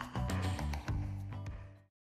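Background music with a steady beat, fading out and dropping to silence just before the end.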